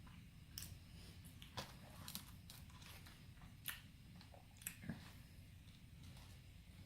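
A person chewing food close to the microphone, with soft mouth sounds and about half a dozen short, sharp clicks.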